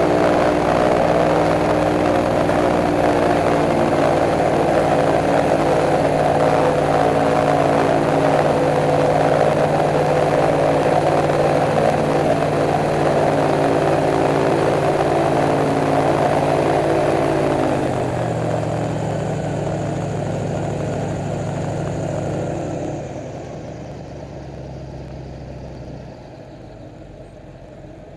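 Airboat engine and propeller running steadily at speed, then throttling back: about two-thirds of the way through the pitch drops and the sound falls away in steps toward idle as the boat slows.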